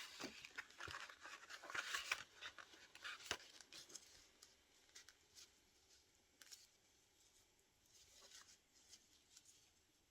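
Faint sounds of scissors cutting paper and the paper being handled: scratchy strokes through the first few seconds, then quieter, with a few small clicks.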